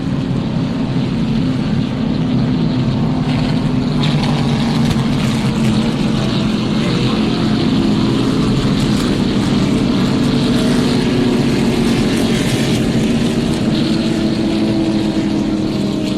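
Stock car engine running steadily, a continuous drone that holds nearly the same pitch and grows slightly louder about four seconds in.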